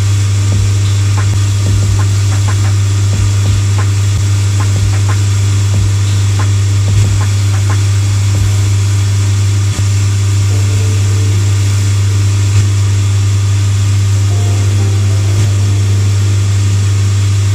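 Cobbler's finishing machine running with a steady low hum while the edge of a leather sole is held against one of its spinning wheels.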